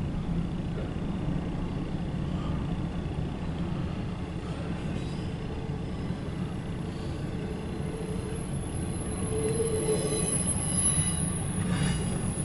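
CSX intermodal freight train's container and trailer cars rolling past, a steady rumble and clatter of wheels on rail, heard from inside a car. It grows louder for a couple of seconds about ten seconds in, with a short clank near the end.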